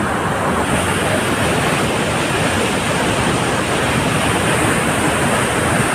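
Steady loud rush of churning white water pouring through a canal fall (jhal) in high flow.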